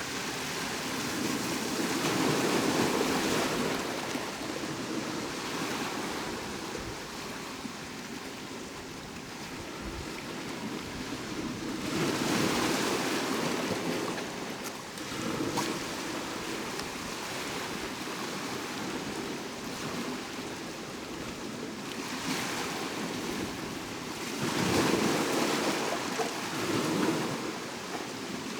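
Ocean waves breaking and washing on the shore: steady surf noise that swells into louder breakers several times, about ten seconds apart, with the loudest near the end.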